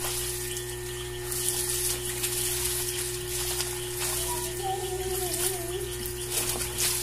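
Water splashing and sloshing as laundry is rinsed by hand, the splashes coming in uneven surges over a steady hum. A brief wavering call sounds about five seconds in.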